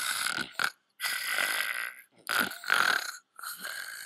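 A woman snoring, a string of snores coming about once a second.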